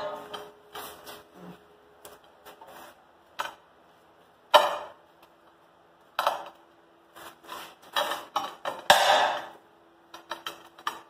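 Steel pipe welding-table frame clanking and knocking, a series of irregular metal impacts with a ringing tone hanging on between them.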